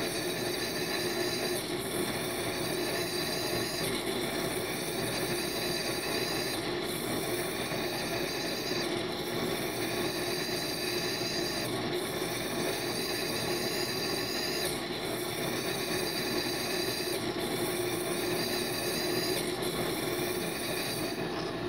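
Liquid nitrogen jetting from a frost-covered purge nozzle with a steady rushing hiss. The hiss changes tone sharply every two to three seconds, then slowly settles back.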